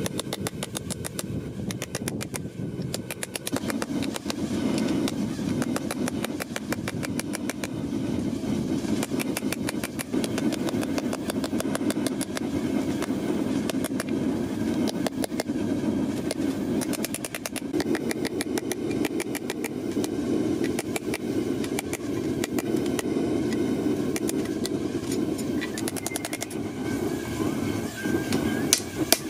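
Hand hammer striking a red-hot 5160 high-carbon steel knife blank on an anvil, forging the blade: a quick, steady run of metallic blows. Underneath is a steady low rushing noise.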